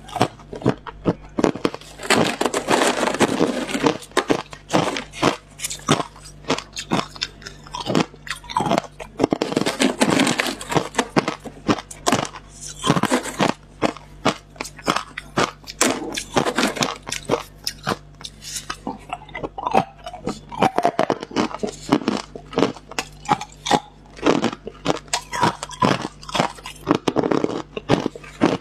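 Hard clear ice being bitten and chewed: rapid, dense crunching and cracking, heaviest in a few bursts, picked up close by a clip-on microphone.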